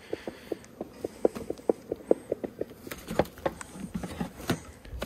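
A quick, irregular run of light clicks and taps, about five a second for the first three seconds and then sparser, over the faint buzz of honeybees around an open hive.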